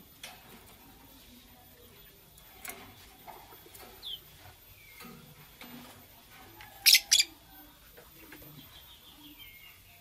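Blue lovebirds chirping in short calls, with two loud, harsh shrieks in quick succession about seven seconds in and a run of quick, falling chirps near the end.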